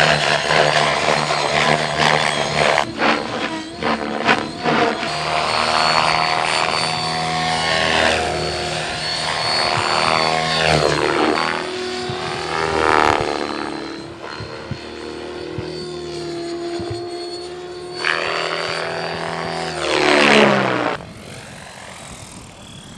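Radio-controlled model helicopter in aerobatic flight: a loud rotor and motor whine that keeps rising and falling in pitch as it manoeuvres. About 20 seconds in, a loud close pass ends in a sharp drop in pitch, and the whine carries on much quieter.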